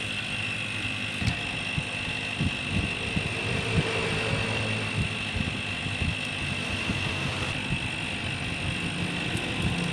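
Hot air rework station blowing steadily with a high whine, heating the phone's display, with a few small clicks of handling.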